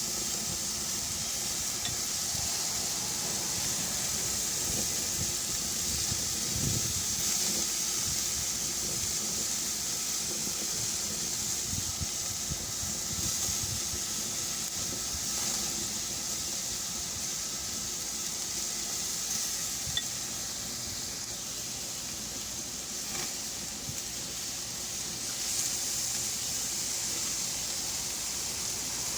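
Marinated pork barbecue skewers sizzling steadily on a grill, freshly basted with the sugary soy-and-ketchup marinade.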